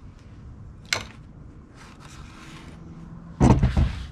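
A metal ladle clinks once as it is set down in a ceramic sauce bowl, about a second in. Near the end comes a louder, low rumbling thud.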